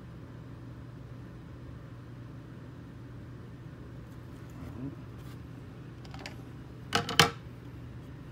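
Steady low room hum, with a few light clicks and then a sharper double clack about seven seconds in as a hard plastic PSA graded-card slab is handled and set down on its stand.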